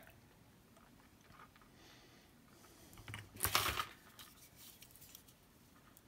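Faint small clicks and handling noise from a wire being worked into a crimp pin held in a ratcheting hand crimper, with one short, louder rustle about three and a half seconds in.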